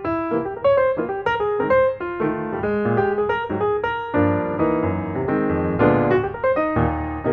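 Background piano music: a run of single notes, thickening into fuller chords about four seconds in.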